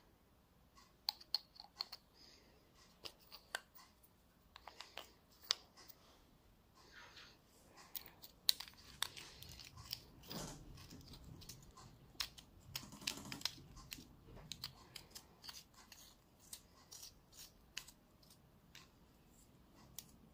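Faint scattered clicks and small rattles of two batteries being fitted into a battery-powered light-up drill pen and its metal end cap put back on, with soft handling noise in the middle.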